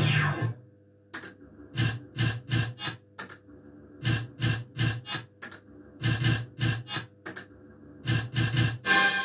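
Astra Riverboat Gambler fruit machine playing its electronic spin sounds while the reels spin: short bursts of notes in quick runs of about four, with a few sharp clicks between them over a faint steady hum. A longer jingle starts near the end.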